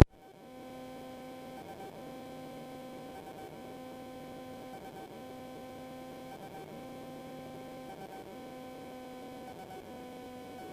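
Steady electrical hum of several fixed tones in the aircraft's intercom and radio audio, with a slow wobble that repeats about every second and a quarter.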